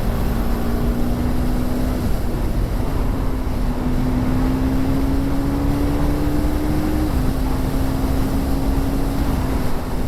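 KTM 390 Duke's single-cylinder engine through its stock exhaust, running under steady throttle while riding, its pitch climbing slowly and dipping in pitch about two seconds and seven seconds in. Wind rush on the microphone underneath.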